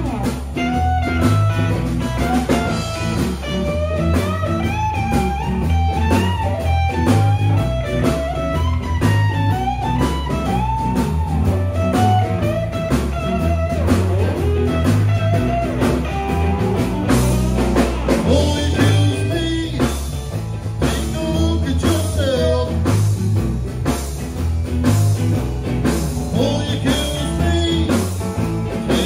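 Blues band playing live: electric guitars and bass guitar over a steady beat, with a melody line of notes that bend up and down.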